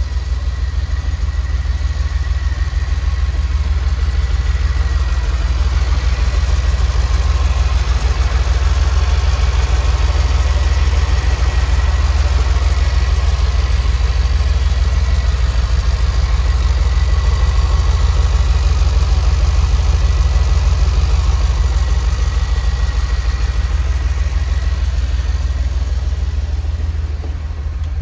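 1981 DeLorean DMC-12's PRV V6 engine idling steadily in the cold, a low rumble that eases slightly near the end.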